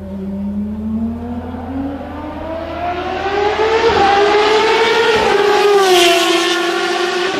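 Formula Renault 3.5 single-seater race car engine accelerating, its note climbing steadily and growing louder as the car approaches. It passes close about six seconds in, at its loudest, and the pitch drops as it moves away.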